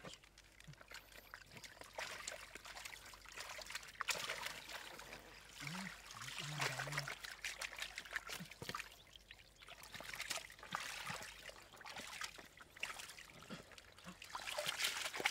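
Water trickling and splashing irregularly, with many small splashes and drips.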